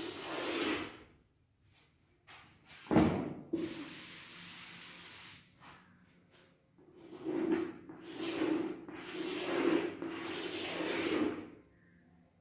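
Chalk scraping across a chalkboard in a series of long strokes as ellipses are drawn and letters written, with a sharp knock of chalk against the board about three seconds in.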